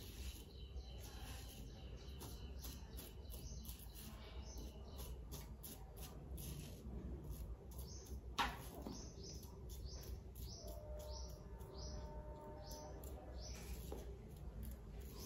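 Merkur 34C double-edge safety razor with a Wilkinson Sword blade scraping through lathered stubble in short strokes, two or three a second. A brief high falling chirp about eight seconds in is the loudest sound.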